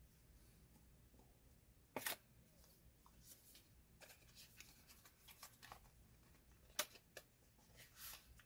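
A cardboard product box being handled and opened by hand: a sharp tap about two seconds in, then a string of faint scrapes and clicks as the box slides out of its paper sleeve, with another sharp tap near the end.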